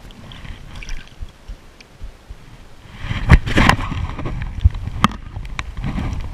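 Shallow water sloshing and gurgling around a hand and a sea bass held in it for release. It grows louder about three seconds in, with a few sharp knocks close to the microphone.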